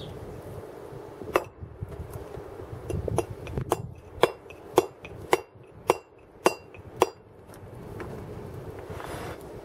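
Round wooden mallet driving a hand chisel into a block of carving stone: about nine sharp, clinking blows, most of them about half a second apart, stopping some two seconds before the end.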